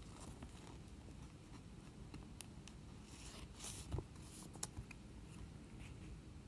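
Trading cards being handled and laid onto piles: faint sliding scrapes and light taps of card on card, with a cluster of sharper taps and slides about four seconds in.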